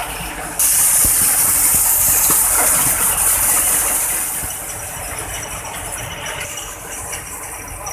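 Heavy tow truck's diesel engine running under a loud steady hiss that starts suddenly about half a second in and fades away after about four seconds.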